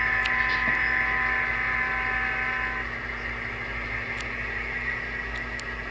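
A model train running away along the layout, its motor whine slowly fading; part of the whine cuts off about three seconds in, leaving a steady hum with a few faint clicks.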